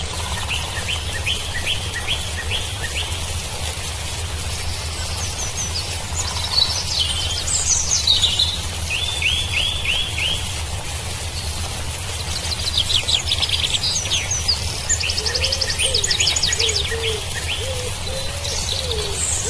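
Several birds singing and calling together: runs of quick repeated notes, sweeping whistles and trills, and lower wavering calls in the second half, over a steady low rumble.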